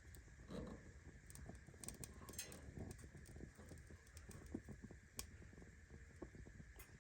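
Faint, scattered light clicks and taps of a kerosene heater's wick-adjustment knob being turned down to lower the flame, over near silence.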